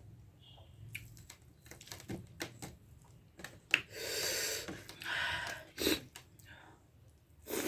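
Close-miked eating sounds: scattered soft mouth and utensil clicks, with a louder noisy stretch of about a second and a half around four seconds in and another near the end.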